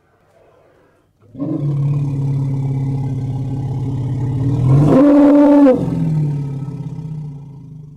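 Elephant calling: a long, low rumbling call starts about a second and a half in. Around the middle it jumps abruptly to a higher pitch for about a second, then drops back down and fades away.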